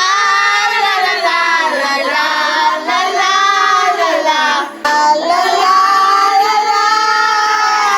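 Singing: a high voice holding long notes that slide up and down, with a brief break just before five seconds in.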